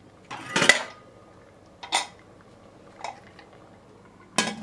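Metal clatter of a stainless-steel pressure cooker lid being handled and fitted onto the pot: one loud clatter about half a second in, shorter knocks around two and three seconds in, and another clatter near the end.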